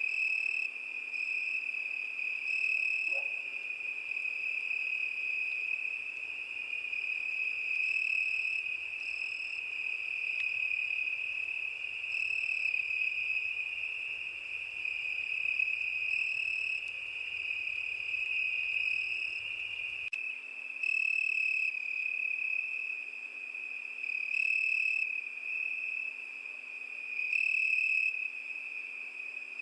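Crickets chirping: a steady high-pitched trill that swells louder every few seconds.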